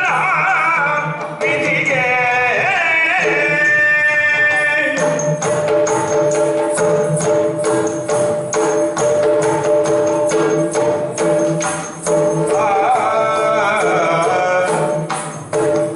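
Yakshagana theatre music. A sung verse in the first five seconds gives way to a stretch of rapid drum strokes and jingling cymbals over a steady drone, and the singing comes back near the end.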